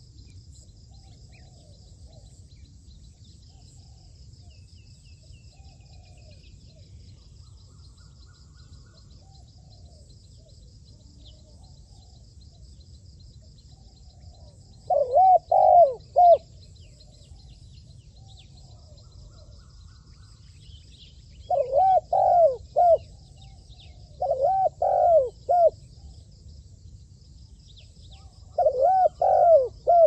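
Spotted dove cooing in four short phrases of three or four hoarse, rounded notes each. The first phrase comes about halfway through and the other three come closer together near the end, over a steady high pulsing drone.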